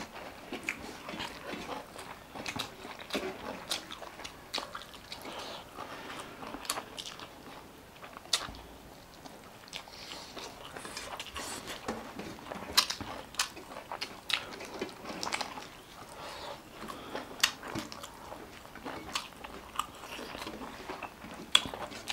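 Close-up eating sounds: chewing and biting, with irregular crunches and mouth clicks.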